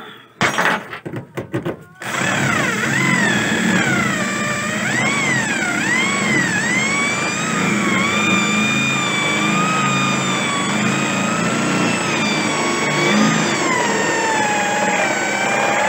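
Corded electric drill with a step drill bit boring into the pickup bed's sheet-metal side: a few short bursts in the first two seconds, then the motor runs steadily, its whine dipping and rising as the bit bites under load.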